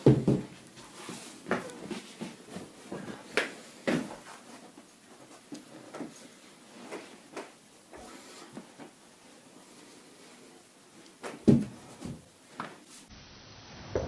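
Hands pressing and stretching a back through a towel on a massage table, with scattered soft knocks and clicks; the loudest knock comes about eleven and a half seconds in.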